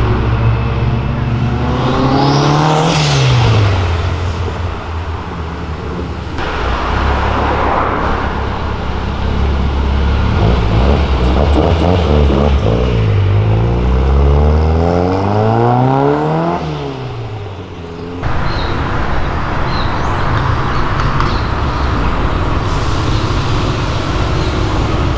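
Car engines accelerating along a street: the engine note climbs and falls away about three seconds in, and again over a longer stretch from about twelve to sixteen seconds. Steady traffic noise follows in the last several seconds.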